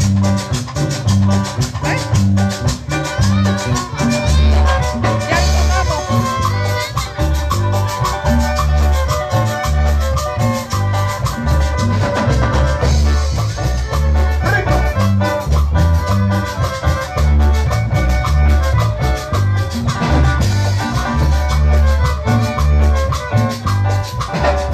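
Chanchona band playing an instrumental cumbia passage live: two violins carry the melody over a bouncing bass line, with drum kit and shaker percussion keeping a steady beat.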